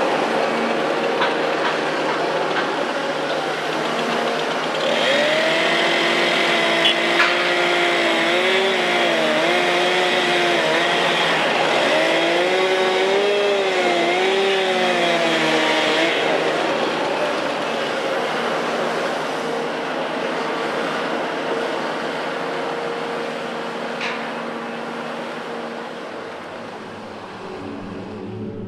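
Caterpillar tracked excavator's diesel engine and hydraulics working as the machine swings and digs, with a wavering whine that rises and falls from about five to sixteen seconds in. The sound fades out near the end.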